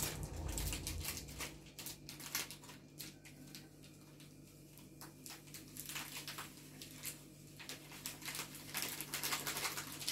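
Dried, crumbled herbs rustling and pattering softly as they are shaken out of a small container into a large glass jar, with light clicks and scrapes of the container against the jar's neck.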